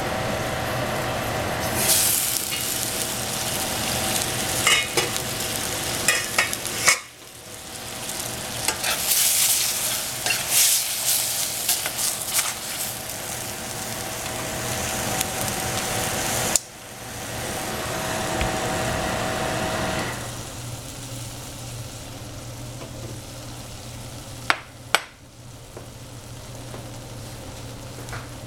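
Egg and oyster mushrooms frying in a stainless steel saucepan, sizzling while a utensil stirs and scrapes against the pan with several sharp metal clicks. The sizzle falls to a quieter level about two-thirds of the way through, leaving a steady low hum.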